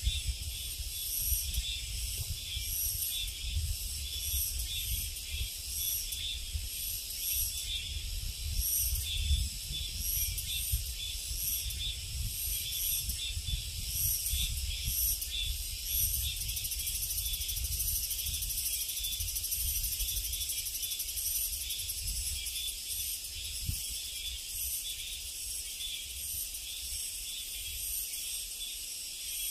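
Cicadas buzzing in a shrill chorus that pulses in repeated waves, turning into a steadier drone around the middle. A low, uneven rumble runs underneath.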